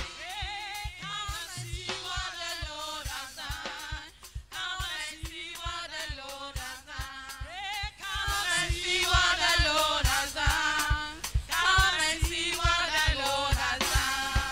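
Gospel praise song sung live by a group of women singers on microphones, over a band with a steady drum beat. The singing gets louder and fuller about eight seconds in.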